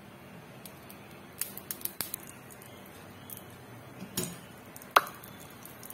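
Cooking oil being poured onto a heated dosa griddle, with scattered light clicks and crackles and one sharp click about five seconds in.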